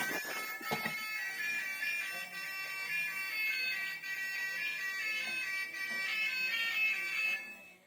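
A high electronic melody of beeping tones stepping from pitch to pitch, with a couple of knocks in the first second.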